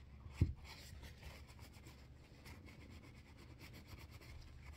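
Faint light rubbing and scratching as green corrosion is cleaned from around the pivot pin of a straight razor, with one soft knock about half a second in.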